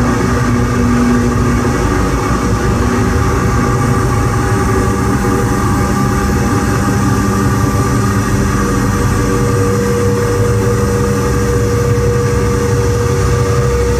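Live electronic noise music from a laptop and synthesizer set-up: a loud, continuous wall of rumbling noise with steady drone tones over it. A low drone drops out near the start, and a higher tone comes in about two-thirds of the way through.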